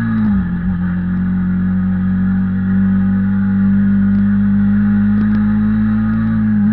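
Kymco Quannon 125's single-cylinder four-stroke engine running under way while riding. Its pitch wavers briefly at the start, then holds nearly steady.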